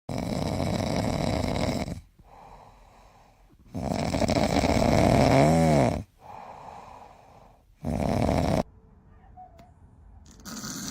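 An animal snoring: three loud, rasping snores of about two seconds, two seconds and under a second, with quieter breaths between them. A short squeaky tone comes near the end of the middle snore.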